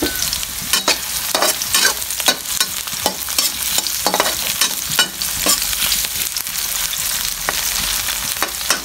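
Food sautéing in hot oil in a pan, a steady sizzle, while a spatula stirs and scrapes against the pan in irregular knocks about every half second.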